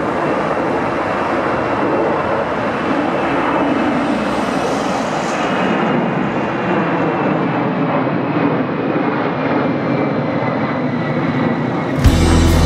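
Boeing 747-400 climbing out overhead, its four jet engines giving a steady roar with a faint whine that slowly falls in pitch as it passes. Music starts near the end.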